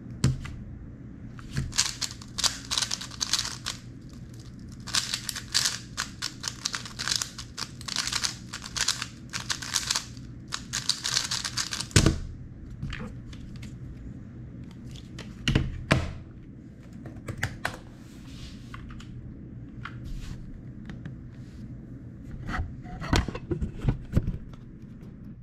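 Rapid clicking and clacking of a 3x3 speed cube's layers being turned fast during a timed solve, for about ten seconds. It ends in a loud knock about twelve seconds in as the cube is put down and the hands slap the timer pads. Scattered clicks and taps follow.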